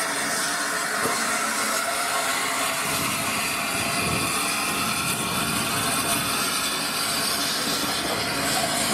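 The three-cylinder Peppercorn A1 Pacific steam locomotive 60163 Tornado hauling its coaches past and away. Steam hisses steadily over the running of the train.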